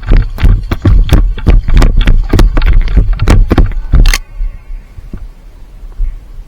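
Quick running footsteps jolting a body-worn camera, loud thuds on the microphone about three or four a second, stopping about four seconds in.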